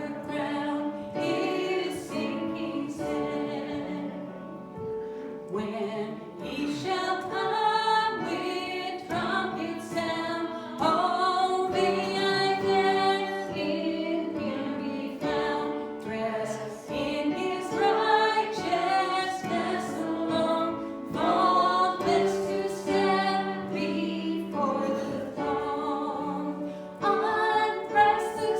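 Church congregation singing a hymn, held notes in slow phrases.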